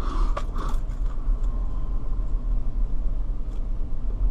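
Car driving slowly, heard from inside the cabin: a steady low road and engine rumble, with a couple of faint ticks near the start.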